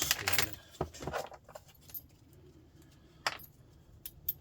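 Small metal parts clinking and rattling as they are handled during a teardown: a quick flurry of clatter at the start, then a few scattered single clinks.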